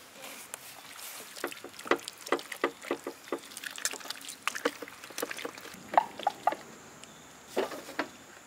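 Wet squelching and splatting of thick papaya paste being poured and rubbed by hand over a raw whole goat carcass on a steel tray, as a run of irregular short splats and clicks.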